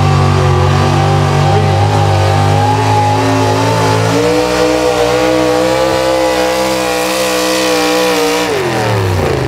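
Modified four-wheel-drive pulling truck's 650-cubic-inch naturally aspirated engine running hard at high revs. The pitch steps up about four seconds in, holds, then winds down near the end.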